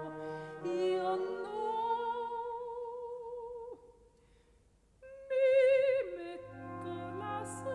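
Slow, classical-style background music of long held notes with vibrato, in an operatic singing manner. It fades almost to silence for about a second just past the middle, then returns with a loud held high note over low sustained notes.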